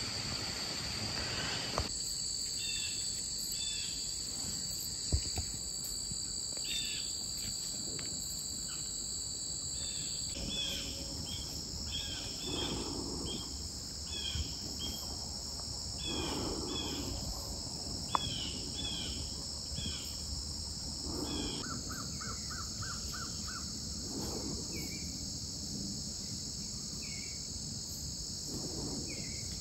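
A steady chorus of insects in summer woods, with many short bird chirps and calls over it. Two sharp knocks, about five and eighteen seconds in, fit acorns dropping onto the forest floor.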